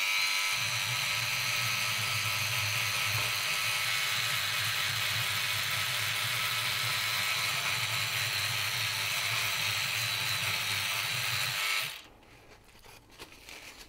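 Sonic Scrubber electric oscillating cleaning brush running with a steady buzz as its bristles scrub a circuit board wet with flux cleaner; it switches off about twelve seconds in.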